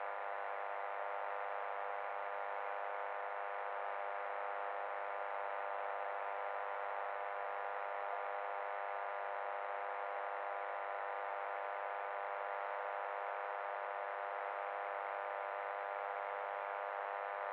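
A steady buzzing hum, one unchanging tone rich in overtones, thin, with no bass.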